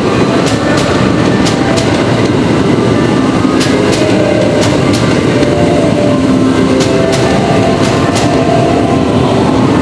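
683-series electric limited express train moving along the platform, with a steady rumble and the wheels clacking over rail joints and points.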